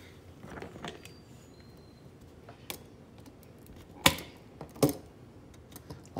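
Scattered clicks and light knocks of wire strippers gripping and bending stiff aluminum wire at a receptacle's screw terminals. Two louder knocks come a little after four seconds and near five seconds.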